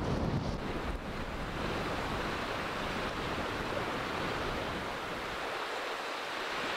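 Steady wash of distant sea surf. Wind buffets the microphone with a low rumble for the first second, then stops suddenly.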